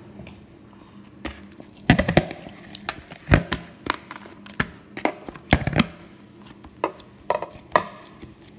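Hands pressing and kneading oiled roti dough in a plastic bowl: a run of irregular soft thuds and knocks.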